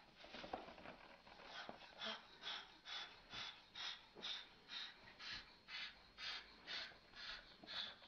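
Salmon-crested cockatoo making short breathy huffs, about two a second, a threat display toward a cat. In the first two seconds there are a few knocks from the scuffle.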